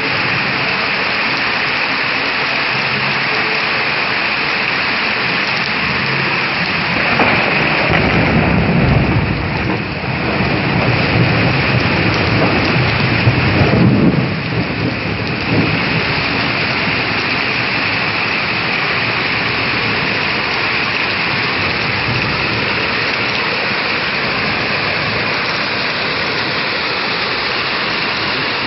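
Steady rain falling, with a low rumble swelling about seven seconds in and dying away by about sixteen seconds.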